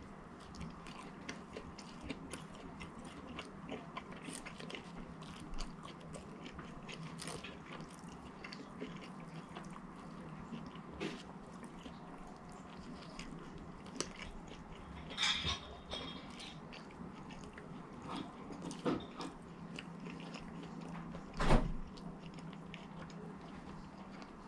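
Close-up chewing and biting of fast food, with wet mouth clicks throughout and a few louder bites about 15, 19 and 21 seconds in.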